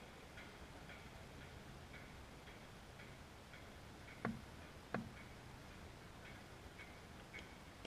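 Two sharp knocks about two thirds of a second apart near the middle, fitting a cricket bat being tapped on the hard court surface at the crease. Under them, faint, regular ticking about twice a second.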